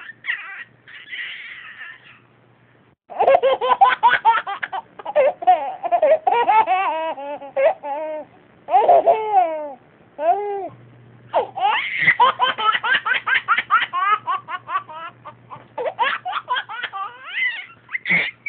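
One person laughing hard in quick, high-pitched bursts, stopping briefly about two thirds of the way through before starting up again.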